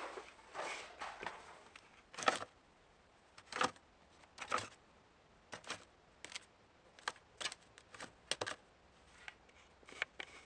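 Index cards in a desktop card file being flipped through one by one, a short flick with each card, a dozen or more at uneven intervals.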